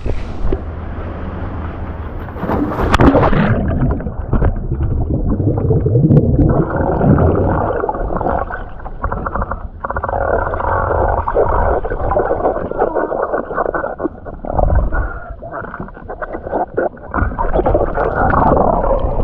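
Waterfall water churning and gurgling in surges, heard muffled with the microphone underwater in the plunge pool.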